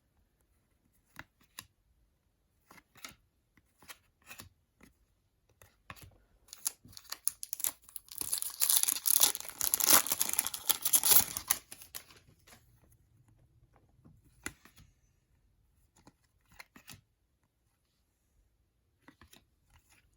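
Trading card pack wrapper being torn open: a rustling tear lasting several seconds about halfway through. Before and after it, sparse light clicks and taps of cards being handled.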